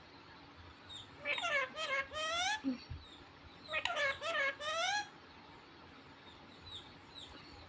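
A parrot twice giving the same short, talking-like call, each about a second long, the second about two and a half seconds after the first, with the pitch rising at the end of each.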